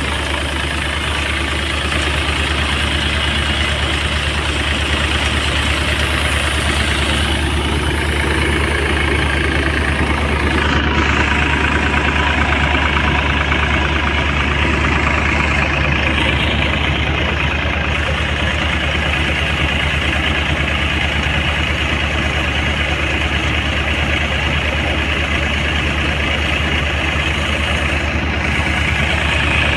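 Massey Ferguson 245 tractor's three-cylinder diesel engine running steadily at close range, an even low drone with a rough mechanical clatter over it.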